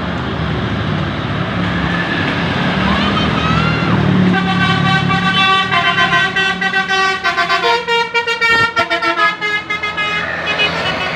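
Bus telolet horn, a set of air horns, playing a tune in several tones at once. It starts about four seconds in and changes pitch in steps, then warbles rapidly on and off before stopping near the end. A bus engine is running and people's voices are heard beneath.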